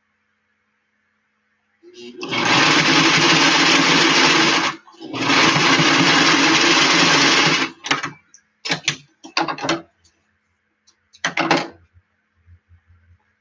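Old electric domestic sewing machine stitching in two long runs of about three seconds each, then several short bursts of stitching. The machine is jamming up and bunching the stitches on the seam.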